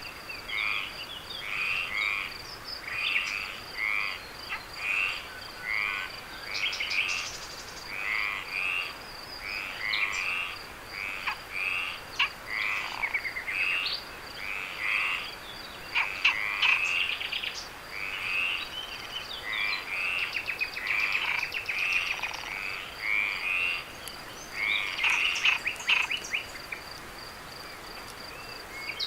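Frogs calling over and over in a night chorus, short rising calls about two a second, over a steady high-pitched insect trill.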